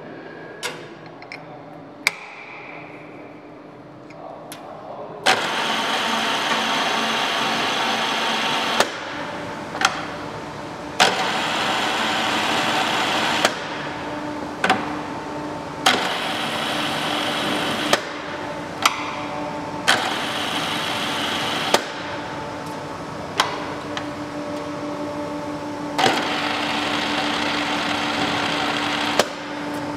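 WMW BS 63 pillar drill with a multi-spindle drilling head running under power: a loud, steady machine whirr and hum that starts about five seconds in. It changes level every few seconds, and many of the changes are marked by a sharp clunk.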